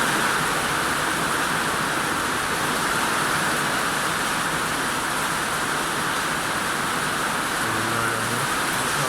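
Heavy rain falling steadily, an even unbroken hiss of drops.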